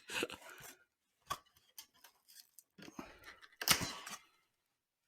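Boom arm parts and packaging being handled: scattered light clicks and brief rustles, with a louder rustle a little after halfway.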